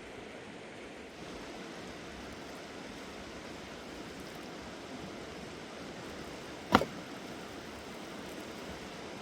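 Steady rushing of river water, with one sharp knock about two-thirds of the way through.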